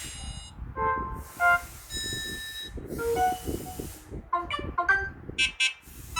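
Samsung Galaxy Tab A11 notification sounds played back one after another, from the Calm set and then the Fun set: short electronic chimes and beeps, each under a second, separated by brief pauses. About four seconds in comes a quick cluster of notes. A steady low background hiss runs underneath.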